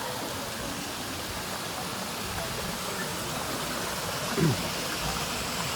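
Steady rush of a waterfall and stream pouring into a pool. A brief sliding vocal sound cuts in about four and a half seconds in.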